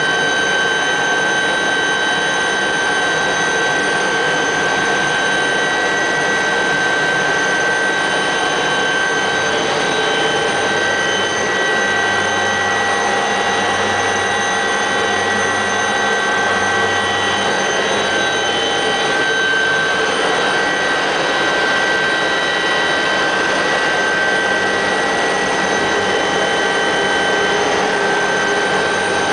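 Helicopter in flight heard from inside the cabin: a loud, steady engine and rotor noise with several steady high-pitched whines over it, and a low throb that comes and goes midway.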